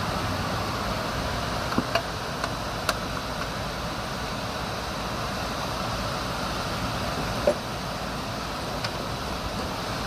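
Steady road and engine noise heard from inside a Kenworth T800 semi truck being driven, with a few short sharp knocks, the loudest about seven and a half seconds in.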